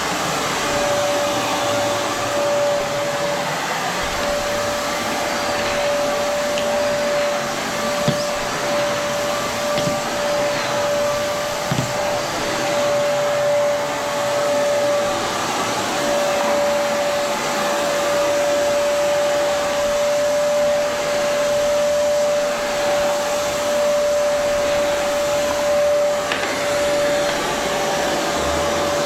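Vacuum cleaner running steadily over carpet, its motor giving a constant whine over the rush of air, with a couple of brief knocks.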